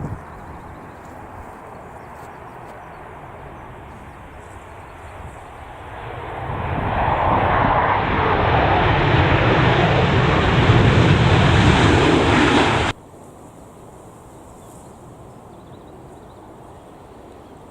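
Jet airliner passing close on its landing approach: its engine noise swells from about six seconds in, holds loud with a rising whine, then cuts off suddenly. A low wind rush fills the rest.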